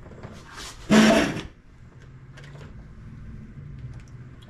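Live steam 2-8-2 locomotive pushed by hand a short way along its track: a brief rolling, scraping rumble of metal wheels and rods about a second in, then a few light clicks from the valve gear.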